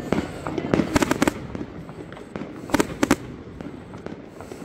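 Aerial fireworks bursting overhead: a quick cluster of sharp bangs about a second in and another near three seconds, over a continuous crackle.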